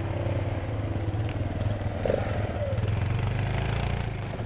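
ATV engine running steadily, with a low, evenly pulsing hum.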